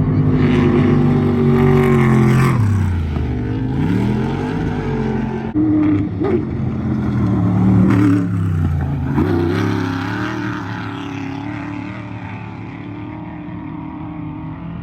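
Off-road race truck engines revving hard, the pitch falling steeply and climbing again several times as the throttle is lifted and reapplied, typical of trucks coming through a jump. The sound fades somewhat over the last few seconds.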